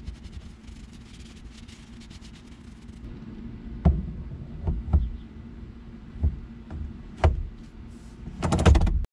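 A cloth rubbing over the metal quick-release hub. Then a string of sharp knocks and clicks as the steering wheel's quick-release is slid onto the NRG hub and latched, with a louder, rapid rattle of clicks near the end. A faint steady low hum runs underneath.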